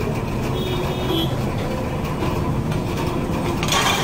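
Steady low rumbling roar of a commercial gas stove burner under a large pot of boiling eggs, with a short sharp hiss near the end.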